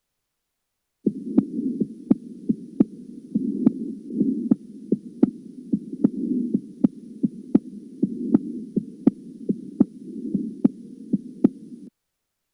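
Recorded heart sounds demonstrating a third heart sound (S3), the extra early-diastolic sound that gives a ventricular gallop rhythm. Short, sharp beats recur about every third of a second over a steady low hiss, starting about a second in and stopping just before the end.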